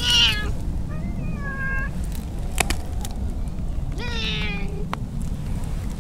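A cat meowing three times: a short falling meow at the start, a softer drawn-out one about a second in, and a louder falling meow about four seconds in. A single sharp click falls between the second and third meows.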